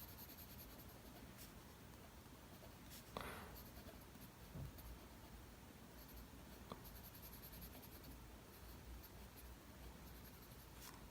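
Faint scratching of mechanical pencil lead on drawing paper, short shading strokes, with one clearer stroke about three seconds in.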